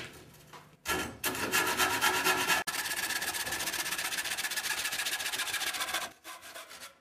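Handsaw cutting through a wooden 2x2 in rapid back-and-forth strokes, starting about a second in; the sawing slows to a few last strokes near the end as the cut finishes.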